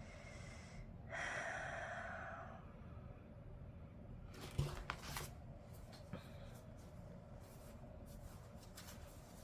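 Quiet handling of a paper planner and stickers. A soft rushing noise about a second in lasts a second and a half and fades, then light clicks and paper rustles follow from about the middle on.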